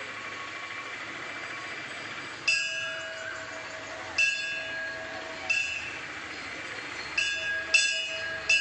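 Temple bell struck six times at uneven intervals, starting about two and a half seconds in and coming quicker toward the end, each stroke ringing on over steady background noise.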